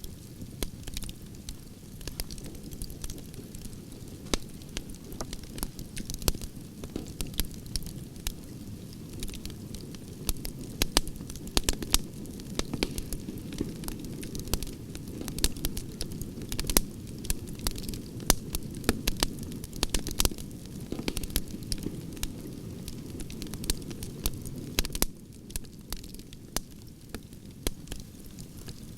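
Campfire of burning logs: a steady low rush of the flames with frequent, irregular sharp crackles and pops from the wood.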